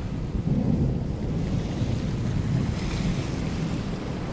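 Storm at sea: a deep, steady rumble of wind and rough waves, swelling and easing a little.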